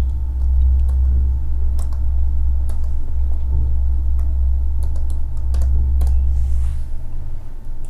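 Computer keyboard typing: scattered key clicks as a word is typed. Under them runs a loud, steady low hum that drops away near the end.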